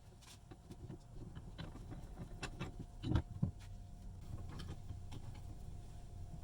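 Small mechanical clicks and knocks over a low rumble, with two louder knocks about three seconds in.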